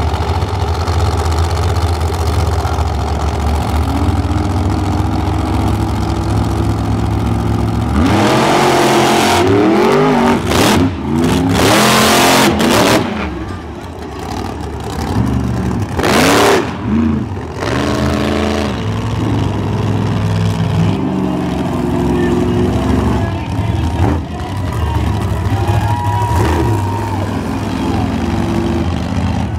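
Monster truck engines revving hard as two trucks race around a dirt track, the pitch climbing and dropping with the throttle. The loudest full-throttle stretches come around the middle.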